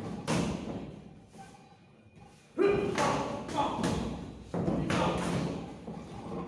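Thuds of punches and kicks landing in a Muay Thai bout, echoing in the gym: one near the start, then a cluster of heavy hits from about two and a half seconds in to around five seconds. Voices shout among them.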